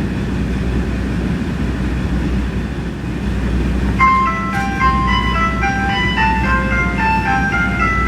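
KiHa 47 diesel railcar idling with a steady low rumble in the cabin. About four seconds in, the JR Shikoku announcement chime starts playing over the train's PA, a melody of short bright notes in quick steps that signals an announcement is coming.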